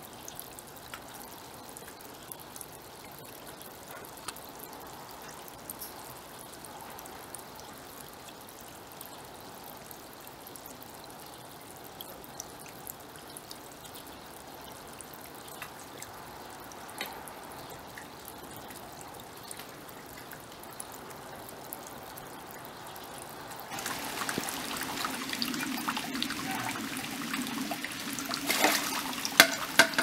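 Water trickling steadily from a bamboo kakei spout into a stone tsukubai basin. About 24 s in the water sound grows louder and splashier, with a couple of sharp taps a few seconds from the end.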